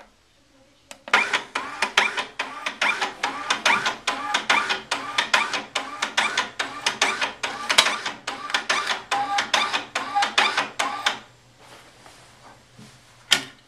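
Datamax M-4308 Mark II thermal label printer running its automatic printhead-cleaning cycle: the drive pulls a cleaning card under the printhead in a rapid train of clicking motor pulses. It starts about a second in and stops after about ten seconds. A single sharp click comes near the end.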